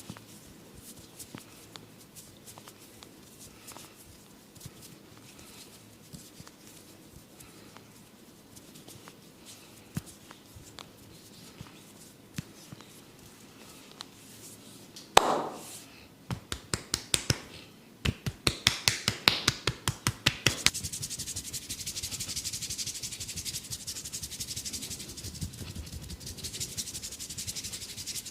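Massage strokes on head and skin: faint light taps and rubbing, then one loud slap about halfway through. A quick run of sharp taps follows, about five a second for some four seconds, then steady brisk rubbing.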